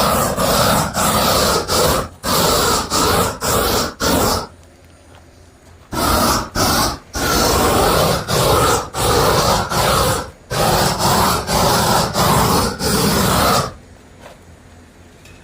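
Handheld propane torch flame blowing in loud on-off bursts of about a second each, with two longer pauses, about four seconds in and near the end.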